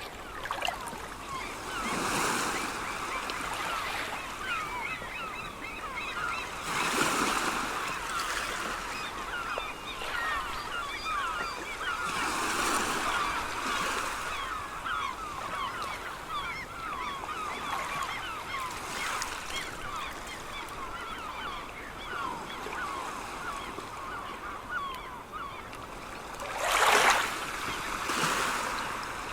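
A flock of seagulls calling over and over, many voices at once, over sea waves washing in. A wave breaks every several seconds, and the loudest one comes near the end.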